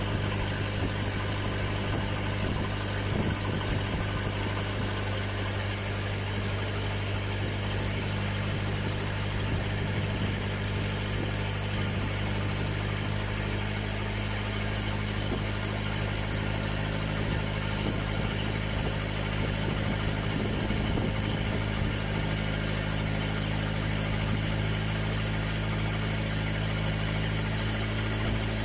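Boat engine running steadily under way, heard on board: a constant low drone with a thin high whine above it.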